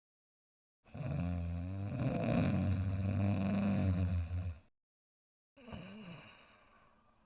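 Cartoon dog's snoring, voiced by an actor: a long, low, rasping snore of about four seconds starts about a second in, followed after a short pause by a shorter breath that fades away.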